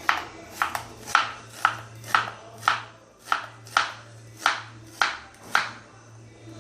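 Knife chopping on a cutting board with sharp, evenly paced strokes, about two a second.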